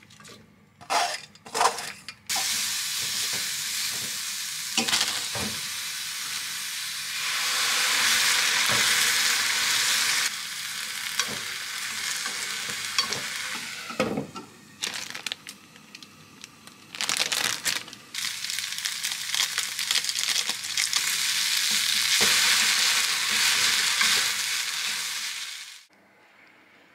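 Shredded cabbage and noodles sizzling in a frying pan, with a few sharp clatters near the start. The sizzle dips and swells several times as the food is worked in the pan, then cuts off suddenly near the end.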